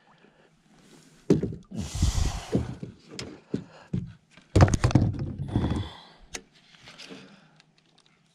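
Dull thumps, knocks and rustling of handling inside an inflatable kayak, as a just-landed bass and a fishing rod are moved about. The loudest cluster of knocks comes about halfway through.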